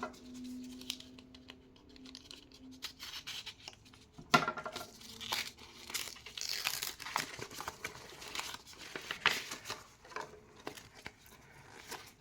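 Blind-box packaging being opened by hand: cardboard and a plastic bag tearing and crinkling in irregular rustles and short rips. It is faint at first and busiest from about four seconds in, with a sharp rip near the start of that stretch.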